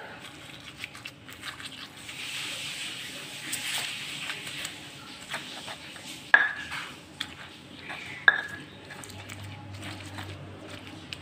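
Stone pestle (ulekan) crushing and grinding fried chillies and tomatoes in a stone mortar (cobek): wet squishing and scraping with many small clicks, and two sharp stone-on-stone knocks that ring briefly, about six and eight seconds in.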